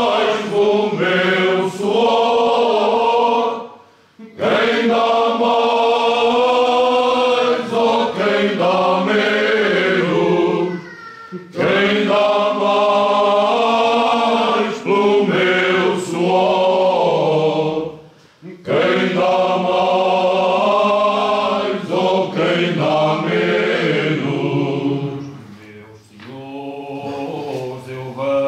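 Unaccompanied men's choir singing Cante Alentejano: many voices together in a slow song of long held phrases, breaking off briefly between phrases roughly every seven seconds.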